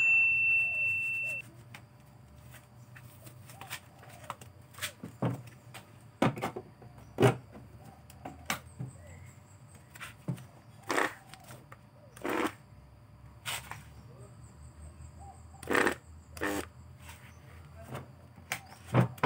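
A short electronic chime rings out and fades in the first second and a half. Then scattered sharp clicks and knocks come from handling a Makita HR2470 rotary hammer, plugging it in and pressing its trigger switch, with no motor running: the drill is dead when the trigger is pressed, before its armature and carbon brushes are replaced.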